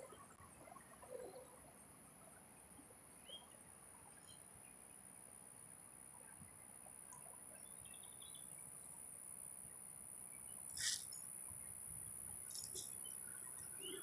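High-pitched, steady trill of an insect in the grass, with two brief sharp clicks near the end, the first one the loudest.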